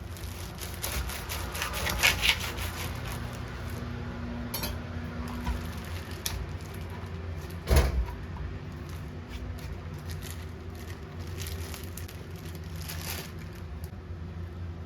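Kitchen preparation sounds: scattered clicks and knocks of utensils and dishes, a small clatter about two seconds in and one loud knock about eight seconds in, over a steady low hum.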